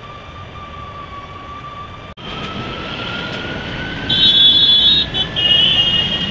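Moving city bus: a steady whine over road rumble, then, after a cut, a whine that rises slowly in pitch as the bus gathers speed. About four seconds in, a loud high-pitched horn sounds for about a second, then sounds again, longer, near the end.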